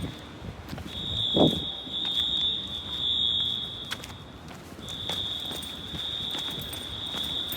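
Wheelock AS fire alarm horns sounding from a parking garage, heard at a distance as a steady high tone that breaks off for under a second twice, once at the start and again about four seconds in. A short low whoosh about a second and a half in is the loudest moment.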